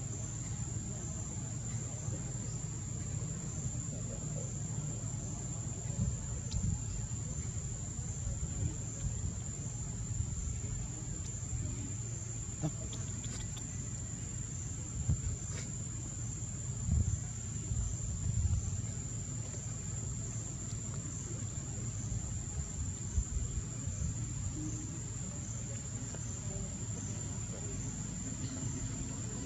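Steady high-pitched buzz of calling insects over a low background rumble.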